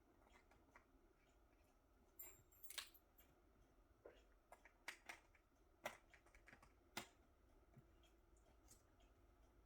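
Near silence with faint, scattered light clicks and taps, a small cluster a couple of seconds in and then single taps every second or so.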